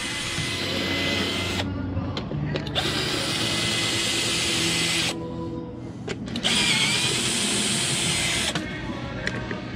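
Cordless drill/driver turning screws in a roller skate plate, running in three bursts of about two seconds each with short pauses between.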